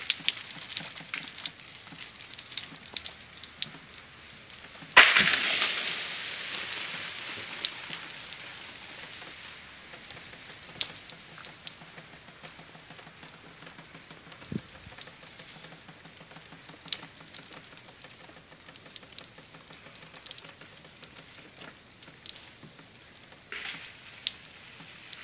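An ice-laden tree branch breaking in an ice storm: a sudden loud crack about five seconds in, then a few seconds of crashing and rushing that slowly fades. Scattered small ticks and patters of ice and freezing rain come and go throughout.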